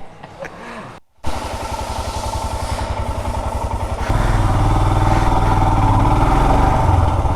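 Royal Enfield Himalayan's 411 cc single-cylinder engine running through its stock exhaust with an even thumping beat. About four seconds in it becomes louder and deeper.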